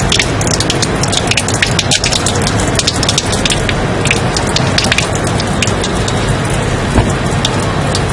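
Loud, steady white-noise hiss filled with a dense scatter of sharp crackles and ticks, with one stronger knock about seven seconds in.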